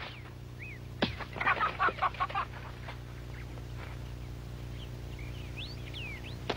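Hens clucking in a short flurry of calls about a second in, followed by a few faint high bird chirps near the end.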